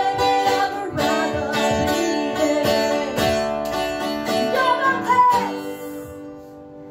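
Woman singing the closing line of a song over strummed acoustic guitar. The voice stops about five seconds in, and the last guitar chord rings on and fades.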